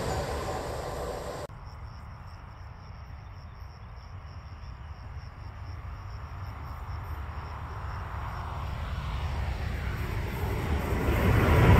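The tail of a passing train fading, cut off suddenly about a second and a half in. Then a distant train rumbles as it approaches, growing steadily louder toward the end.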